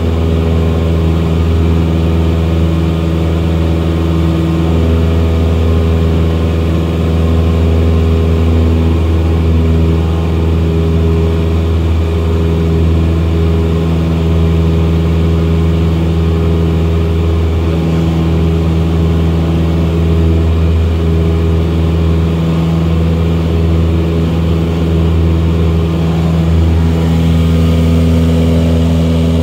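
Cessna 172SP Skyhawk's four-cylinder Lycoming engine and propeller running steadily at climb power, heard from inside the cockpit as a loud, even drone.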